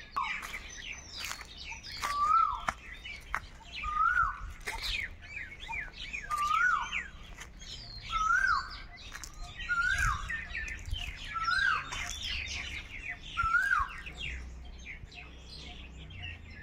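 Asian koel calling: a short rising call repeated about every two seconds, seven times, with other birds chirping and twittering around it.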